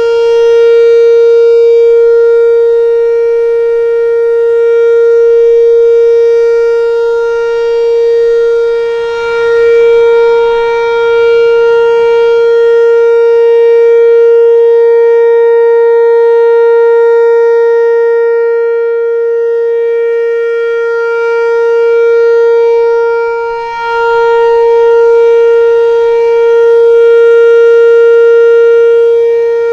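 Whelen WPS-4004 electronic outdoor warning siren sounding its steady alert tone: one held, unwavering pitch rich in overtones, its loudness swelling and dipping slightly.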